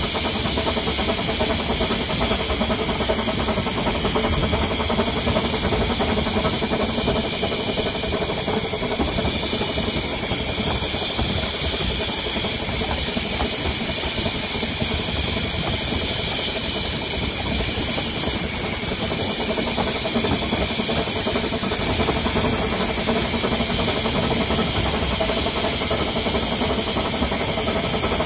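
Narrow-gauge steam locomotive Peter Pan, a Kerr Stuart Wren-class saddle tank, working hard up a steep bank: a continuous rush of exhaust chuffing and steam hiss, heard close up from the footplate.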